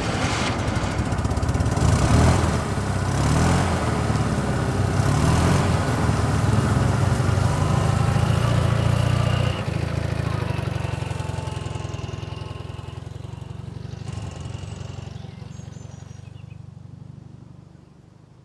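An engine running loudly, then gradually fading away over the last several seconds.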